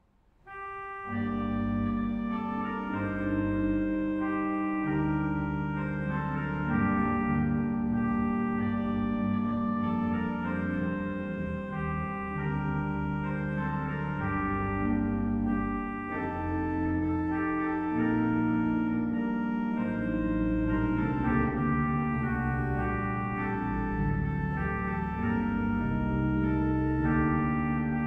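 1912 Bevington & Sons pipe organ playing, coming in about a second in after a brief silence: held chords and a melody over low bass notes that change beneath them.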